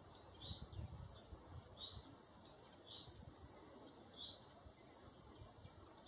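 A bird calling faintly: four short, high chirps spaced about a second and a quarter apart, over a faint low rumble.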